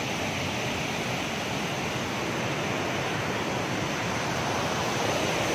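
Steady rush of river water flowing through a small irrigation weir.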